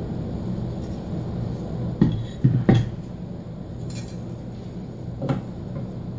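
Lumber and hand tools being handled on a hard floor: a quick cluster of three sharp wooden knocks and clatters about two seconds in, then one more knock a few seconds later as a metal speed square is set onto a board, over a low steady hum.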